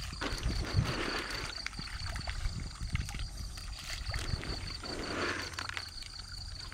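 Water sloshing and splashing around a floating net fish pen in a pond, swelling near the start and again about five seconds in, over a low rumble of wind on the microphone.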